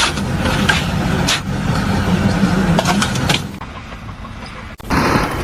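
A motor running with a steady low hum that fades about three and a half seconds in, followed after a sudden cut by a louder, noisier rumble.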